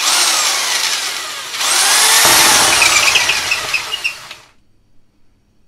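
Corded drill turning a 52mm diamond core bit with its hammer action off, starting the hole through plasterboard. The drill starts at once, eases off, runs harder again about a second and a half in, and stops about four and a half seconds in.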